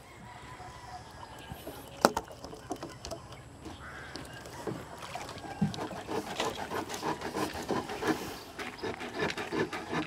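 A catfish flopping on bamboo dock slats: irregular tapping and slapping that gets busier from about five seconds in, with one sharp knock about two seconds in.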